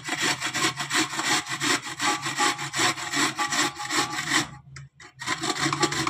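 Carrots being grated on a stainless-steel box grater standing in a large aluminium pot: quick rhythmic rasping strokes, about three a second, with a short pause a little over four seconds in before the strokes resume.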